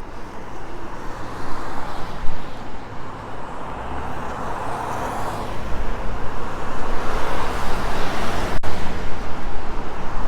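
Road traffic on a wet, slushy street: cars passing with the hiss of tyres on the wet road, swelling twice as vehicles go by.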